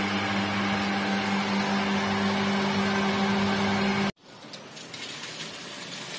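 Texmo 1 HP centrifugal monoblock water pump running: a steady electric-motor hum with a clear tone over a rushing whir. About four seconds in it cuts sharply to water gushing from a tap, a quieter, even rushing hiss.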